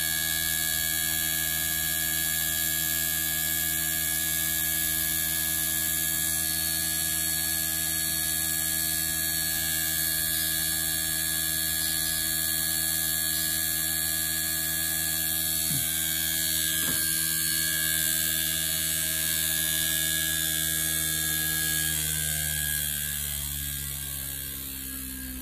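Steady electric hum and whine with several pitched tones from powered air-conditioner inverter boards and motors on a test bench. Near the end the tones slide down in pitch and fade slightly, as a motor winds down after being switched off.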